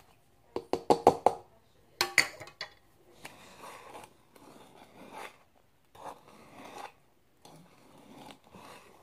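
A wire whisk clinking sharply against a mixing bowl several times, then stirring pancake batter with soft, uneven scraping strokes.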